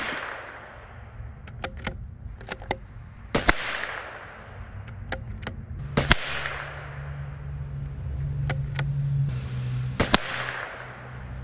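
.22 LR bolt-action rifle firing four shots, one right at the start and then about every three to four seconds, each crack trailing off in a short echo. Between shots, pairs of small metallic clicks from the bolt being worked to chamber the next round.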